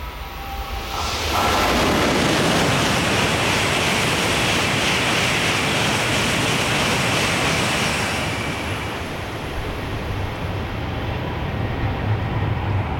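An N700-series Shinkansen train passing through the station at high speed without stopping. A sudden rush of air and rail noise starts about a second in and stays loud for about seven seconds, then eases to a lower rumble.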